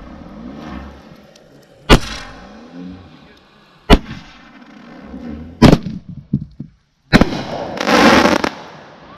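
Consumer firework cake (Winco Ninja Star, 12 shots) firing its last tubes: a sharp launch bang about every two seconds, four in all, with a few small pops after the third. The last shot is followed by a loud, hissing burst lasting about a second and a half.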